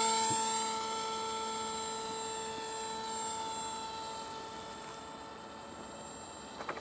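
Electric motor and propeller of a Beta 1400 RC motor glider, a steady whine that fades as the plane flies away just after its hand launch.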